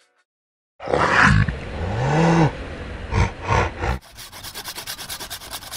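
Loud growling vocal noises, their pitch sliding up and down, starting about a second in. Then a fast, even rasping rhythm, about eight strokes a second.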